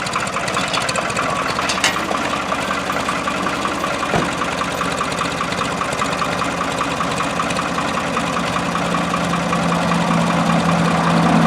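An engine idling steadily with an even, rapid pulse, growing louder near the end.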